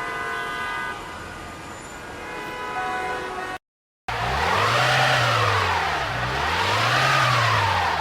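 Held musical chords for the first few seconds, a sudden cut, then a siren wailing, its pitch rising and falling smoothly about every two seconds.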